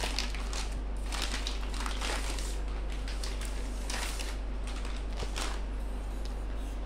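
Plastic bag crinkling and rustling in short irregular rustles as a shock absorber is slid out of it, over a steady low hum.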